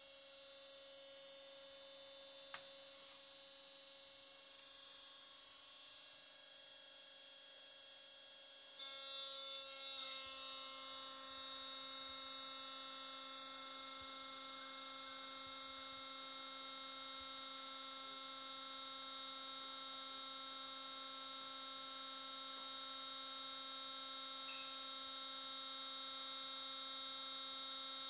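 Faint, steady electric hum from a proportional hydraulic test rig running in auto cycle mode, with one short click a couple of seconds in. About nine seconds in the hum gets louder and changes pitch, then holds steady.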